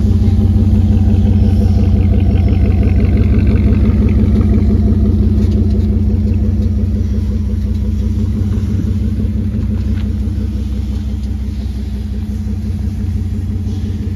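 A vehicle engine running steadily close by, a deep rumble with a fast, even firing pulse that eases off slightly in level over the last few seconds.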